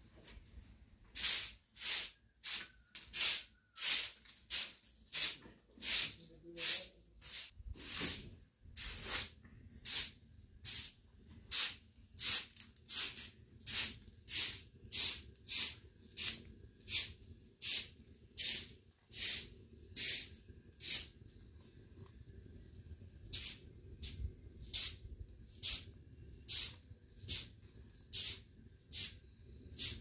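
Broom sweeping a bare floor in steady swishing strokes, about two a second, with a pause of a couple of seconds about two-thirds of the way through.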